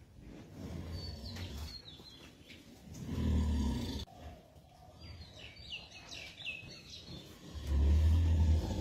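Small birds chirping in short, high, falling calls, over a low rumbling noise that swells twice, once about three seconds in and again near the end.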